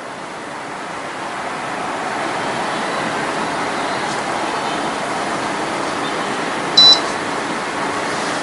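One short, high electronic beep about seven seconds in, from the electronic foam density meter, over a steady rushing noise that swells during the first two seconds.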